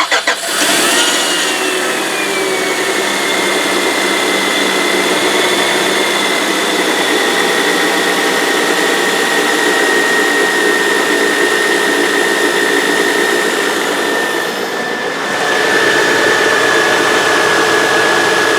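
2001 Honda Odyssey's 3.5-litre V6 catching and then idling steadily with its newly replaced auto-tensioner and accessory belt. A steady high whine runs over the idle, easing slightly in pitch in the first few seconds, and the loudness dips briefly about 15 seconds in. The belt and tensioner run without the noise the old tensioner made.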